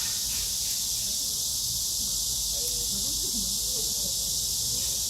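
Steady high-pitched insect chorus, with faint distant voices about halfway through.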